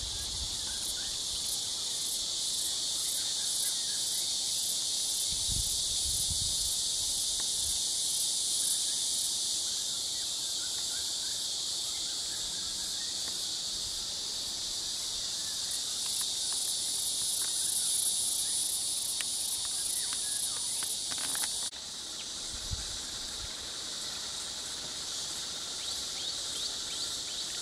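Steady, loud chorus of insects, a dense high buzzing with a pulsing shimmer at the top. A few low thuds come about six seconds in and again after the sound drops abruptly about two-thirds through.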